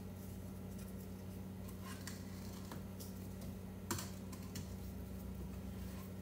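Faint scattered clicks and scrapes of a spatula against a stainless steel mixing bowl, with one sharper tap about four seconds in, over a low steady hum.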